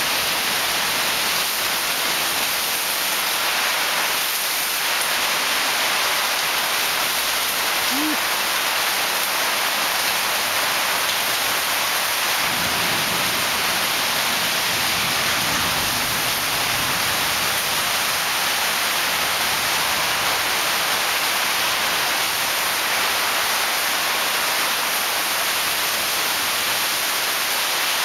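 Heavy tropical rainstorm pouring down on dense garden foliage and tiled roofs: a steady, even hiss of rain, with a low rumble for a few seconds midway.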